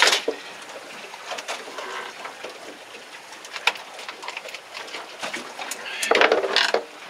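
Scattered knocks and clicks as a yellowtail is handled and pinned against a boat's deck for dispatching, with a louder scraping rush about six seconds in.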